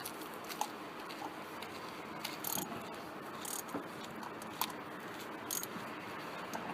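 Scattered light clicks and short scrapes of hand tools and metal parts being handled during engine work, over a steady background hiss.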